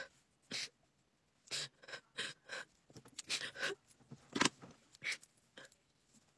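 A woman crying: a string of short sobbing breaths and sniffles, about eight in all, with brief pauses between them.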